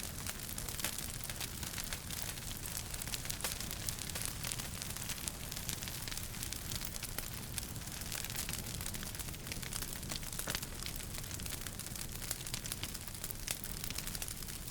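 Wood fire burning in a fireplace, crackling with a dense, irregular run of small sharp pops over a steady hiss and low rumble.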